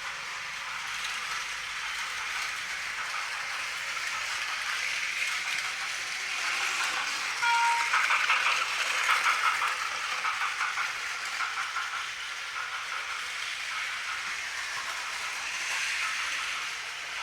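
Battery-powered toy trains running on plastic track: a steady motor whir and rapid clicking of the wheels over the track joints. The sound grows louder for a few seconds in the middle, as if a train is passing close by, and a short high beep sounds about seven seconds in.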